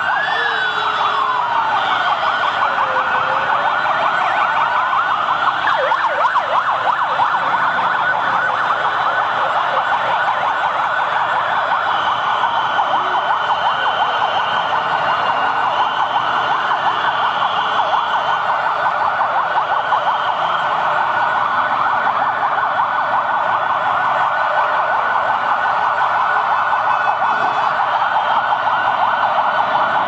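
Massed sirens and horns from a police motorcycle and scooter convoy blaring together in a loud, unbroken din. One siren wails slowly up and down through it, rising and falling about every five and a half seconds.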